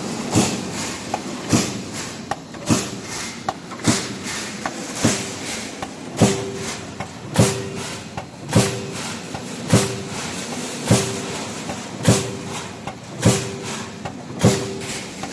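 Roll forming line for traffic noise barrier panels running, with its punch press striking at an even rhythm of about one stroke every 1.2 seconds; many strokes leave a brief metallic ring.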